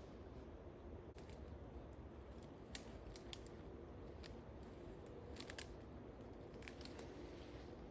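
Faint footsteps on a steep wooded slope: scattered sharp crackles and snaps of dry twigs and leaves underfoot, several in quick clusters.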